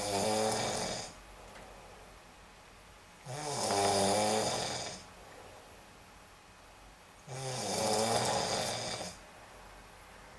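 A sleeping person snoring: three long, pitched snores about four seconds apart, each lasting a second and a half to two seconds, with quiet breathing between them.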